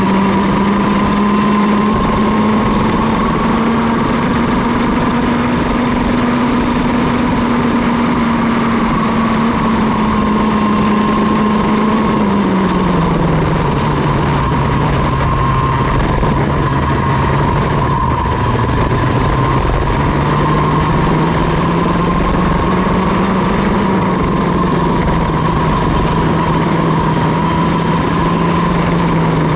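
Mini ROK race kart's 60cc two-stroke engine running at racing speed, heard onboard. Its pitch climbs a little, drops clearly about twelve seconds in, then rises slowly again.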